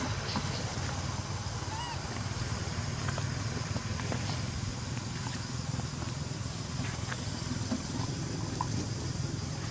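Steady outdoor background noise with a constant low rumble, with a short faint squeak about two seconds in and a few light ticks.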